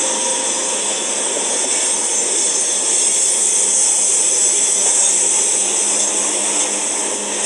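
Freight cars rolling past: steady rushing noise of steel wheels on rail, strongest in the high pitches.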